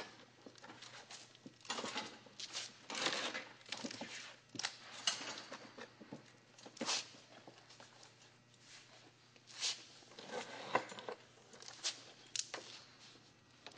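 Stone-coated metal flashing being worked in a hand-operated sheet-metal bender: quiet scraping and rustling of the sheet, with scattered sharp metallic clicks and knocks as it is positioned and bent to 90 degrees.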